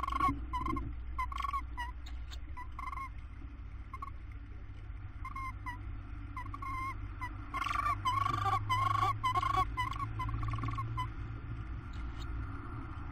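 Tawny owls in the nest box calling in runs of short, high notes, several a second, loudest about eight to ten seconds in, over a steady low hum.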